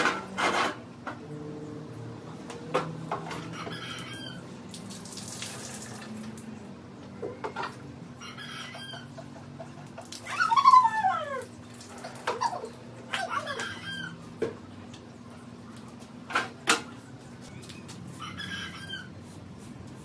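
Water poured from a plastic bucket onto hanging potted plants, with a few sharp knocks of the bucket. Animal calls sound several times in the background; the longest, about halfway through, is a falling cry.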